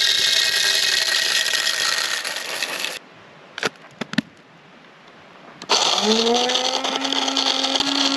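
Electric burr coffee grinder grinding whole beans on a coarse setting. It stops suddenly about three seconds in, and a couple of light clicks follow. About six seconds in a motor starts again, its hum rising in pitch as it spins up and then running steadily.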